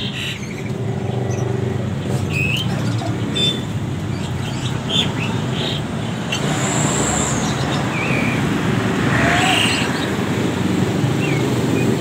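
Steady rumble of road traffic with caged songbirds giving short, scattered chirps and whistles over it.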